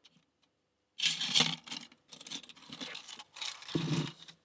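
Metal lock pick and tension wrench scraping and rattling in the keyway of a small all-brass SOL 2500 20 mm three-pin padlock as the pins are picked. The scraping starts about a second in.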